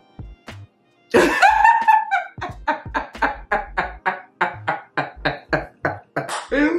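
A person's voice making a long run of short, evenly spaced vocal bursts, about three a second, after a louder drawn-out sound about a second in.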